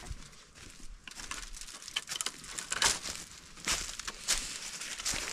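Armful of dry cloth laundry rustling against the microphone in irregular swishes, with footsteps on dirt.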